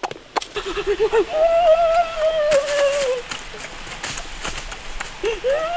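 A person's high voice humming in long drawn-out notes, each held for a second or two and dipping in pitch at its end, with a short wavering run of lower notes near the start.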